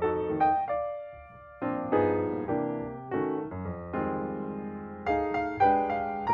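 Background piano music: gentle melody notes and chords, each struck and fading, with a brief lull about a second in.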